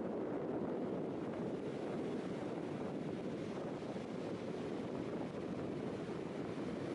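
Steady rush of ocean surf mixed with wind noise.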